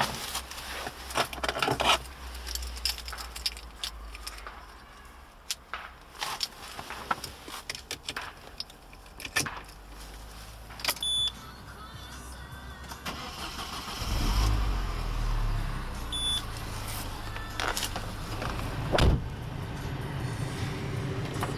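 Handling clicks and knocks in the car cabin, then the key is turned and the Peugeot 207 GT's 1.6-litre turbocharged four-cylinder petrol engine starts partway through, catching and settling into a steady idle. Two short high beeps sound around the start.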